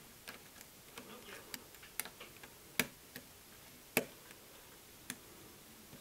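Lock pick clicking against the pin stack of a five-pin Jedo euro cylinder lock held under a tension wrench during single-pin picking: irregular sharp metallic ticks, four of them louder and spaced roughly a second apart, with fainter clicks between.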